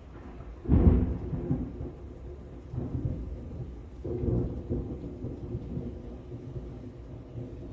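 Thunder during a heavy rainstorm: a sudden clap about a second in turns into a low rumble that swells again twice, over the steady hiss of falling rain.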